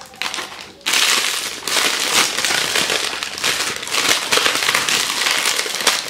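Clear plastic wrapping crinkling and crackling as it is pulled by hand off a horn speaker. It is quiet for the first second, then the crinkling runs on in uneven bursts.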